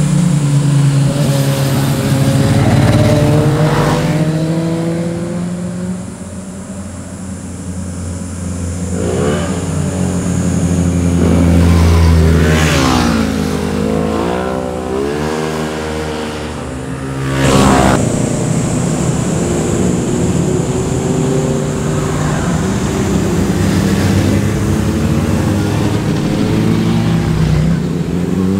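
Several sport motorcycle engines passing through a bend one after another, each note dropping and then climbing again as the bikes slow for the corner and accelerate out. A sharp, loud burst of revs comes about two-thirds of the way through.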